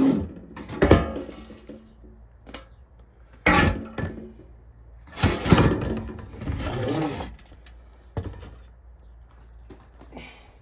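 A series of clunks, cracks and scraping as the unbolted halves of a 1955 Chevy heater box are pried apart and handled, opening it to get at the heater core.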